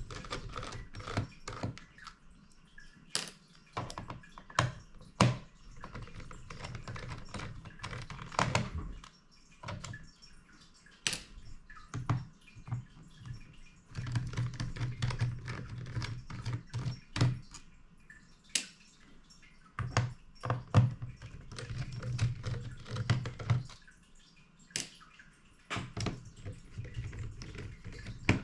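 Irregular small clicks and taps of a precision screwdriver working the screws of a laptop's plastic bottom panel, with the screws and tool being handled and set down. Low hum in two stretches in the second half.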